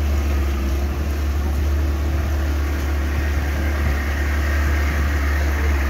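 Small passenger boat's outboard motor running steadily at cruising speed, a constant low drone, with water and wind noise rushing along the hull.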